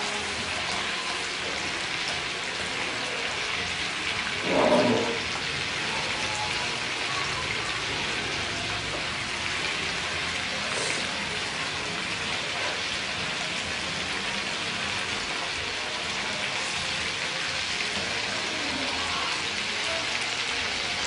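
Duck pieces deep-frying in hot oil in a wok: a steady, even sizzle. One brief louder sound breaks in about four and a half seconds in.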